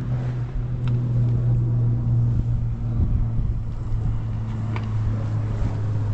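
Boat engine running steadily, a deep continuous drone with a fainter higher hum above it.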